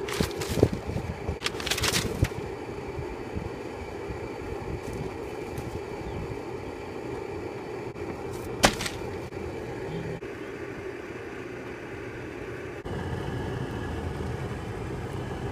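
Steady outdoor background rumble, with a few knocks in the first two seconds and one sharp snap about halfway through.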